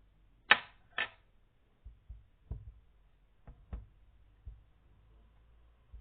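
Knocks and taps from containers being handled on a table. There are two sharp knocks about half a second apart near the start, then several lighter, irregular taps.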